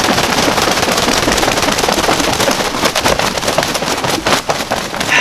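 A freshly shot wild turkey gobbler flopping on the ground: its wings beat and its body thrashes in dry leaves and brush, a loud, dense crackling and rustling that goes on without a break. The turkey is in its death throes after the shotgun hit.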